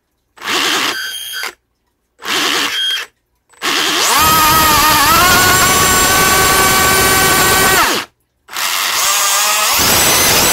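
Small 3D-printed Roots supercharger spun by an electric RC motor: two short spin-ups, then a long high-pitched whine that rises in pitch and holds steady for about four seconds before stopping abruptly, and another run that rises again near the end.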